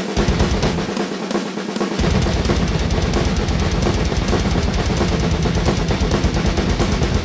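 Rock drum kit played fast along to a heavy metal song, with snare and tom hits. About two seconds in, a rapid, unbroken bass drum pattern starts under the snare and cymbals.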